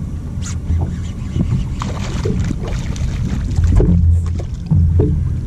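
Wind rumbling on the microphone of a small fishing boat, with water slapping and splashing at the hull where fish are breaking the surface, and a few sharp clicks.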